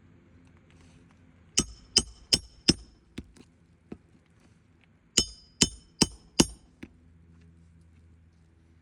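Hammer striking a steel Roof Snake shingle-repair tool to work roofing nails: two sets of four quick, ringing metal-on-metal blows, a few seconds apart, with a few lighter taps between.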